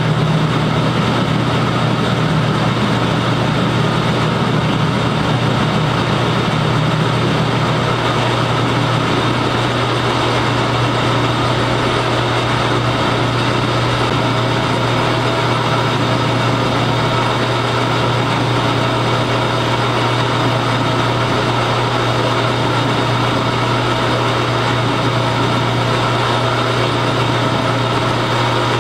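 Metal lathe running steadily with a steady low hum while a carbide-insert tool faces off the end of a small metal part held in the chuck.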